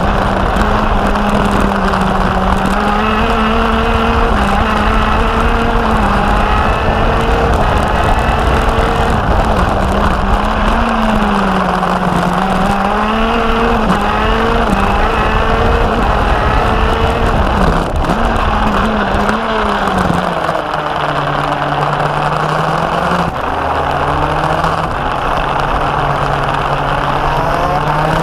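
Racing kart engine heard onboard at speed, its revs rising and falling through the corners. The note drops lower about two-thirds of the way through and climbs again near the end, over steady wind and tyre noise.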